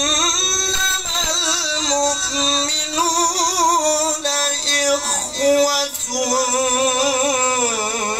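A man's voice chanting Quran recitation in the melodic tilawah style, drawing out long held notes with wavering ornaments and glides, with a brief break for breath about midway.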